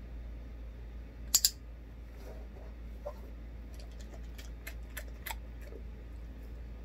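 A dog-training clicker gives one sharp double click about a second and a half in, marking the dog holding its chin in the hand. A run of faint light clicks follows as the dog takes a treat from the hand at its mouth.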